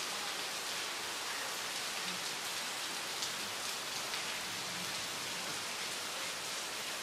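Heavy rain falling steadily onto standing water on a flooded lane: an even, unbroken hiss with faint scattered drop ticks.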